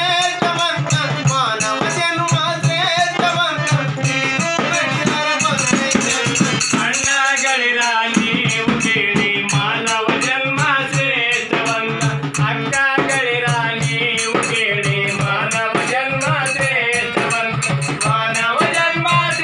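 Kannada folk song performed live: a man singing over a harmonium, with a frame drum and small hand cymbals (taal) keeping a steady beat.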